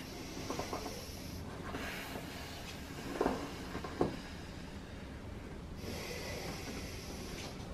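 A woman in labour breathing heavily through a contraction: two long, noisy breaths, one at the start and one near the end, with two short sharp sounds in between.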